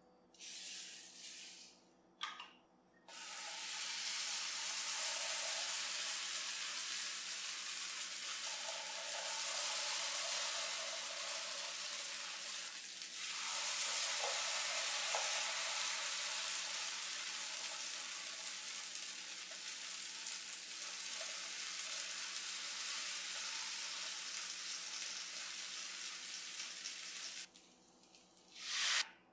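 Vegetable idli batter sizzling on the hot plates of an electric waffle iron, a steady hiss that stops suddenly near the end.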